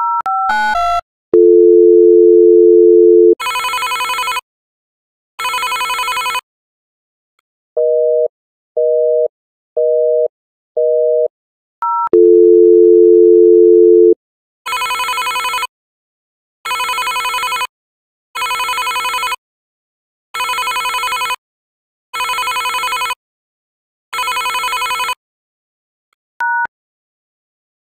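Telephone call sound effects: a few quick keypad beeps, a low steady dial tone of about two seconds, and two ringing tones. Then come four short beeps, another two-second dial tone, and six ringing tones about two seconds apart, with one short beep near the end.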